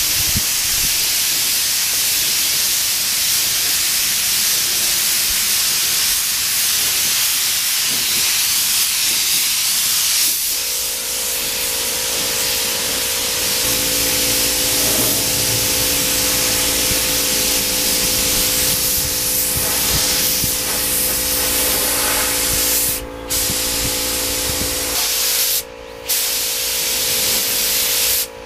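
Gravity-feed spray gun hissing steadily as it lays a final coat of automotive clear onto a motorcycle fairing. The hiss cuts out briefly twice near the end as the trigger is let off, and a steady low hum joins about ten seconds in.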